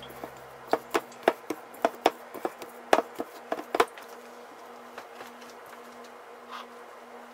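Hand mixing pie crust dough in a stainless steel bowl, with a run of irregular knocks and taps against the bowl for about three seconds before it stops. A steady low hum carries on behind it.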